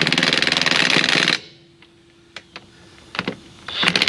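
Cordless DeWalt 20-volt 1/2-inch drive impact wrench hammering a truck wheel's lug nut tight for about a second and a half. After a short pause it starts hammering on the next lug nut near the end.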